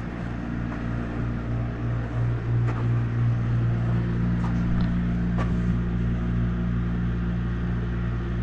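Steady low room hum with even pitched lines, with a few faint clicks.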